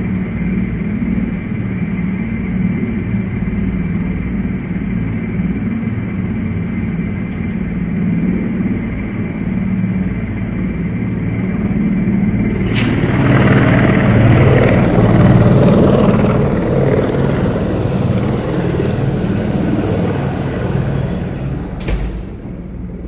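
Helicopter running, heard from inside the cabin: a steady low drone with a high whine. About 13 seconds in, a loud rushing noise joins it, then cuts off suddenly about 22 seconds in.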